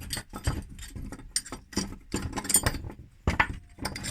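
Irregular clinks and taps of small metal parts being handled: a homemade two-piece clamp for an electric fuel pump.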